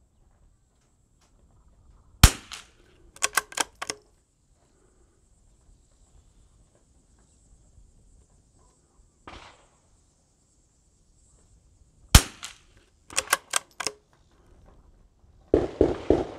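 .22 LR bolt-action sporter rifle firing Lapua Super Long Range: two sharp shots about ten seconds apart, each followed a second later by four quick metallic clicks as the bolt is worked to chamber the next round. Near the end comes a fast cluster of several louder pops.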